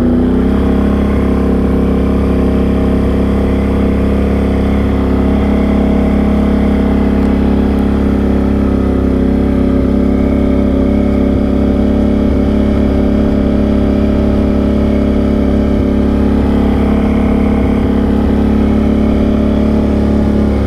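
Can-Am Outlander XMR 850 ATV's V-twin engine running at a steady, even pitch while the quad cruises along.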